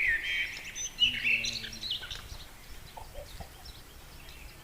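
Birds chirping, a rapid run of high calls in the first two seconds, loudest about a second in, then fainter scattered chirps.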